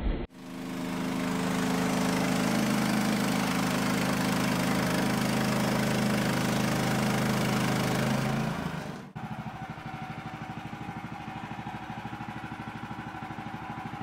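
The gas engine of a Woodland Mills HM130 Max bandsaw mill running steadily while the blade saws through a beam, until about nine seconds in. Then the engine is heard idling more quietly with an even, rapid pulsing.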